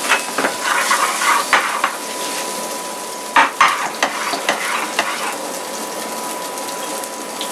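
Diced tomatoes sizzling in a hot stainless steel frying pan with shallots and butter, with louder bursts of sizzling and pan scraping in the first two seconds and again from about three to five seconds in as the pan is shaken. A faint steady tone runs underneath.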